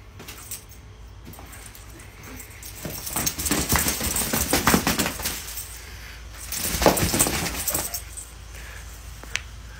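A dog shaking and flinging a plush toy about, its collar tags jingling in quick rattles. The rattling is busiest from about three to five seconds in and again near seven seconds.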